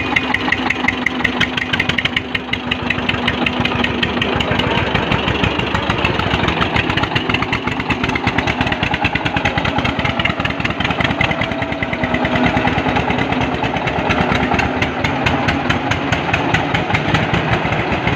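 Tractor diesel engines running with a fast, even chugging as one tractor tows another that is stuck in mud on a chain.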